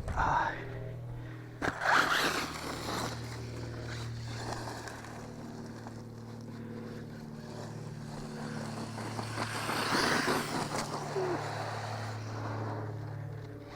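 JLB Racing Cheetah electric RC truck driving over dirt, its tires scraping and kicking up dirt in bursts about two seconds in and again around ten seconds, over a steady low hum.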